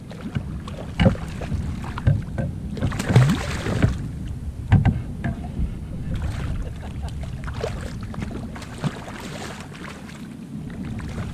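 Water splashing and slapping around a fishing kayak while a hooked fish is fought on rod and reel, over a steady low rumble, with scattered knocks and clicks. Two stretches of louder hiss come about three seconds in and again near nine seconds.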